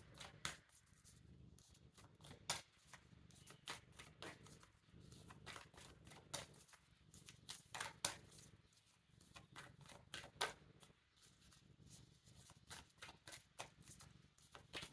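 Faint hand-shuffling of an oracle card deck: irregular soft clicks and flicks of cards.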